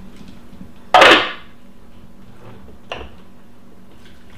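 Spatula scraping down the inside of a plastic food processor bowl. One short, loud scrape about a second in, then a faint tap near three seconds, over a low steady hum.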